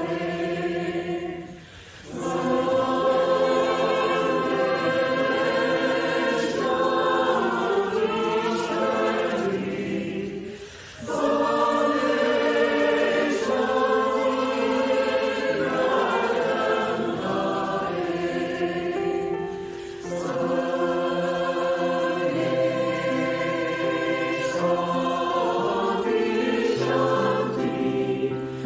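A large virtual choir of many separately recorded voices, mixed together and singing sustained harmony in long phrases. There are brief breaks between phrases about two, eleven and twenty seconds in.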